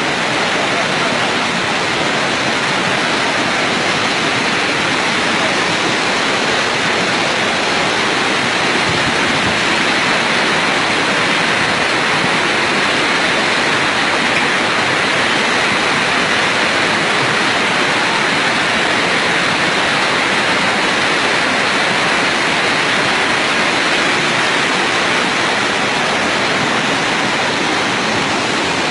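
Loud, steady rush of a flooding river's muddy torrent, an even wash of water noise that does not let up.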